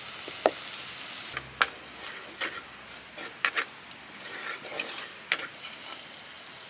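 Spices and garlic sizzling in oil in a pot, then a wooden spoon scraping and knocking against the pot in short irregular strokes as the curry paste is stirred.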